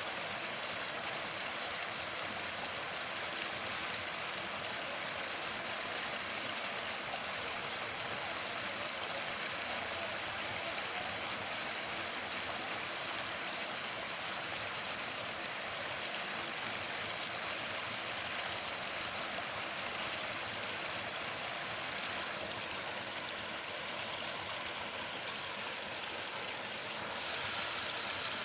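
Steady, even hiss of water, without breaks.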